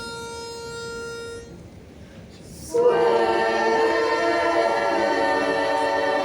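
A single steady starting note sounds for about a second and a half. About three seconds in, a barbershop chorus comes in singing a cappella in close four-part harmony.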